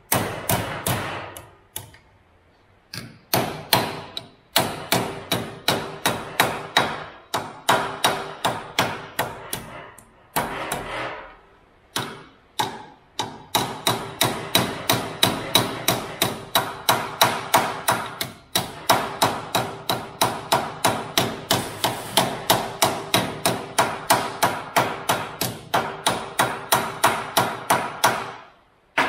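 Panel-beating hammer striking a small steel repair patch to shape it by hand: quick blows about three a second, each with a metallic ring, in runs broken by a few short pauses.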